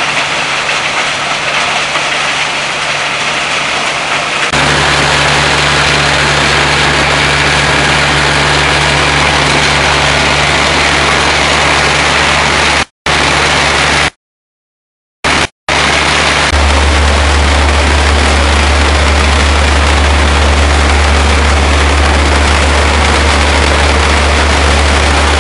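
MES RDS 170 impact crusher in a stone-crushing plant, running with a steady, loud mechanical din over a deep motor hum. The sound cuts out abruptly three times in the middle, and the hum deepens and grows about 4.5 s and 16.5 s in.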